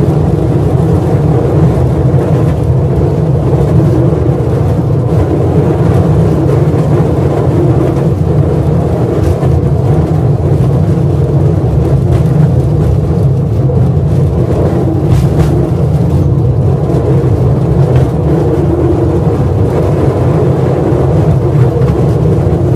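Loud, steady rumble of a mine train running through an underground tunnel, heard from inside the car.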